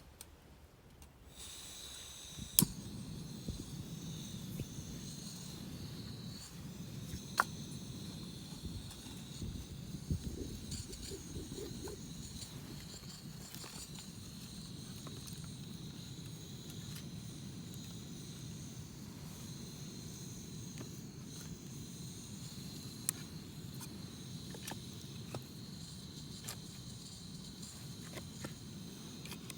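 Insects chirping steadily in a high, even drone, with a few sharp knocks standing out above it, the loudest about two and a half seconds in and another about seven seconds in.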